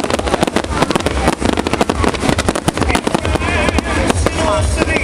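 Fireworks display going off continuously: rapid, dense bangs and crackles over a low rumble.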